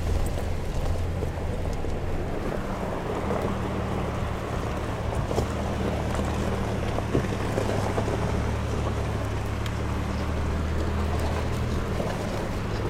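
Toyota SUV driving slowly over a rough gravel track, heard from inside the cabin: a steady low engine hum under rushing tyre, gravel and wind noise, with a few sharp knocks from stones.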